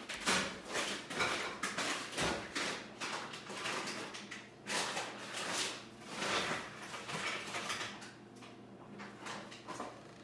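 A paintbrush scrubbing and dabbing paint onto a canvas close to the microphone: a run of short scratchy strokes, with a low knock about two seconds in.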